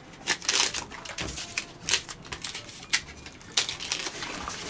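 Dead bark being stripped by hand from a palo de Brasil (Dracaena fragrans) stem: irregular dry crackles and short tearing snaps. The bark comes away easily, a sign that the stem has died.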